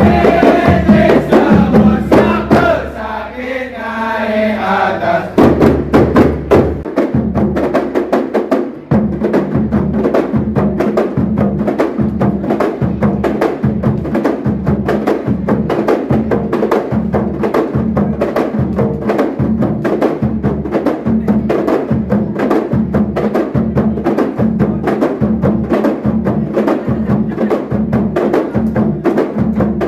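Kompang troupe beating hand-held frame drums together in fast interlocking rhythms. A group of voices joins in briefly a few seconds in, and from about nine seconds the drumming settles into a steady, even beat.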